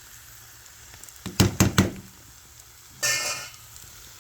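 Fish innards sizzling gently in a frying pan, with a quick cluster of metal clatters a little over a second in as a lid is set on the pan, and a brief scrape about three seconds in.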